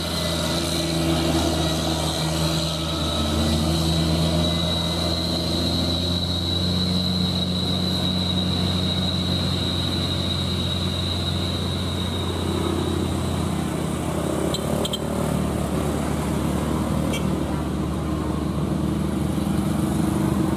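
Diesel cargo truck engine running steadily as it climbs a hill past the camera and pulls away, with a high steady whine that fades out about two-thirds of the way through. Motorcycle engines follow behind it.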